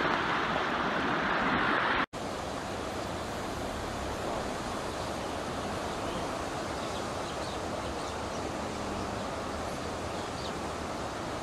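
Loud rushing of fast-flowing brown floodwater that cuts off abruptly about two seconds in. It is followed by a softer, even rushing of floodwater running over a road.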